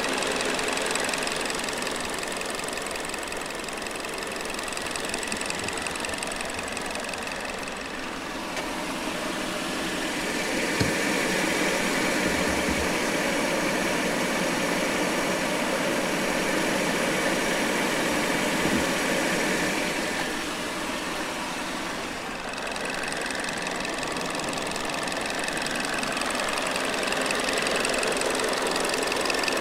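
2022 Hyundai Elantra's engine idling steadily, with a light ticking. The sound grows louder for about twelve seconds in the middle.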